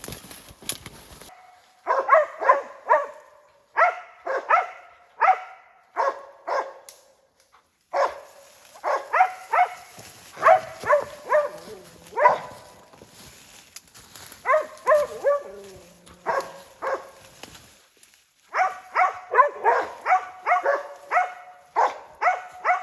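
West Siberian Laika hunting dogs barking in quick bursts of several loud barks, baying a treed black bear. The barking starts about two seconds in, with short pauses between bursts.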